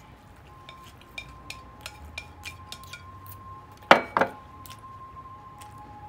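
Chopsticks tapping and scraping on a ceramic plate, a run of light clinks. About four seconds in, the plate is set down with two loud ringing ceramic knocks, a fraction of a second apart.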